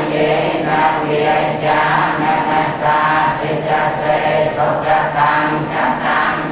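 Buddhist chanting by a group of voices in unison, a steady run of recited phrases with no pauses.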